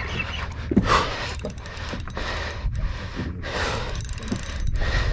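Spinning reel being cranked during a fight with a tuna, its hissing, clicking noise coming in pulses over a steady rumble of wind and boat.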